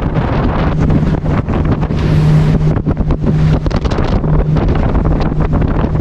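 Motorboat under way: its engine holds a steady low hum beneath heavy wind buffeting on the microphone.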